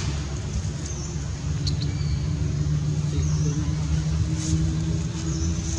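An engine running steadily with a low, even hum. Faint short high chirps repeat about once a second over it.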